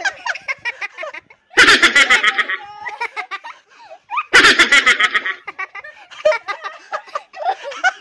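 People laughing: two loud bursts of laughter, each about a second long, around two and five seconds in, with quieter laughing and voices between.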